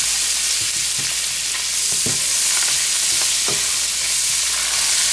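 Butter melting and sizzling steadily in a frying pan of hot oil, flour and burger drippings, the start of a pan gravy, with a few soft knocks now and then.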